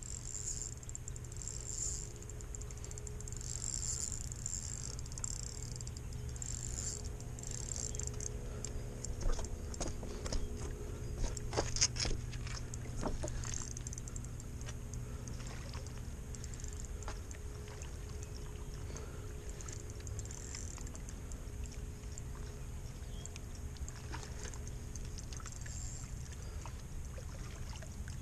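Steady low rumble with a faint hum, and a run of sharp clicks and rattles about nine to thirteen seconds in from a spinning reel being handled during a cast and retrieve.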